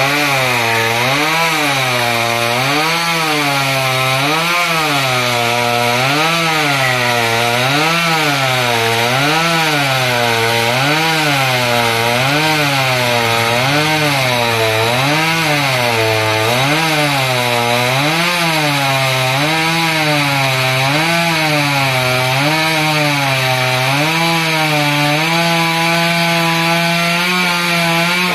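Small top-handle two-stroke chainsaw cutting into a wood block, its engine pitch rising and falling in a steady rhythm about every second and a half as the chain works the cut. The pitch holds steady for the last couple of seconds.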